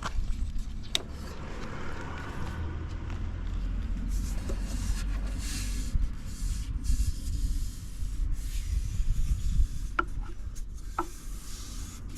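Buell XB12SCG Lightning's air-cooled 1203 cc V-twin idling after a cold start, a steady low rumble. Rubbing and hissing handling noise and a few sharp clicks sit over it.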